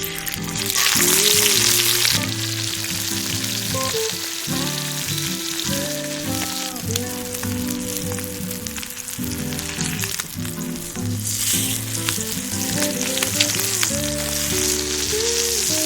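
Food sizzling and frying in a hot pan over the fire as it browns. The sizzle swells for a couple of seconds near the start and again toward the end.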